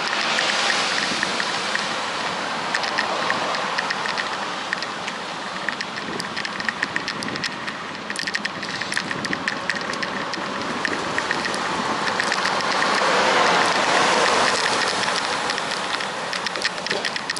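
Wind and tyre rush of a moving bicycle with a run of fast, light ticks. The rush swells to its loudest about two-thirds of the way through.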